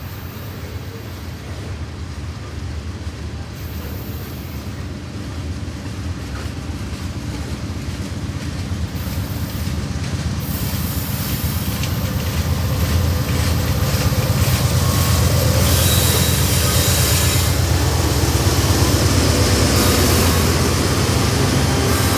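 CSX freight train rolling past: a low rumble of wheels on rail with a high hiss, growing steadily louder for the first two-thirds, then holding.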